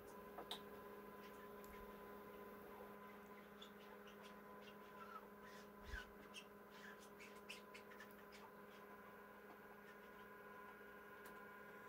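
Near silence: a steady, faint electrical hum, with a few faint, scattered ticks.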